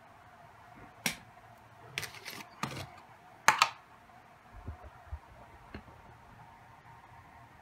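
Plastic screw-top lid being twisted and pulled off a plastic deli cup: a handful of sharp plastic clicks and snaps, the loudest about three and a half seconds in, then a few soft low knocks.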